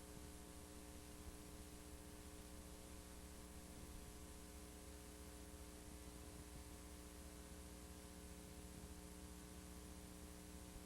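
Near silence: a faint, steady electrical hum with a little hiss.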